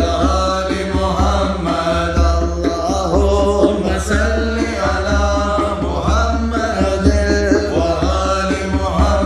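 Salawat nasheed: layered voices chanting a devotional refrain in long, bending sung lines over a deep low drone, processed as 8D audio so the sound pans around the listener.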